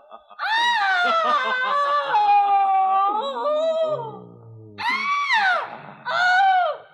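High-pitched human screaming: one long wavering scream, then two shorter cries about five and six seconds in, the first sliding down in pitch.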